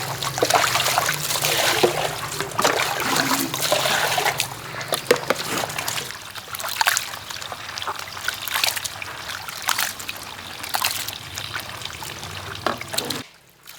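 Water splashing and trickling, with many small clicks and knocks; it stops suddenly near the end.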